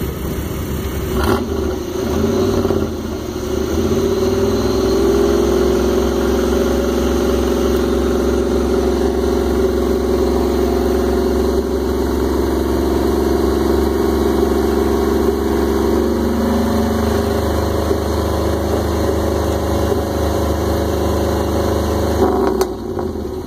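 Electric winch on a pickup truck, running under heavy load to drag a stuck vehicle out of mud, with the truck's engine running. It winds up a few seconds in and holds a steady pitch, which sags about two-thirds of the way through. Near the end it stops abruptly.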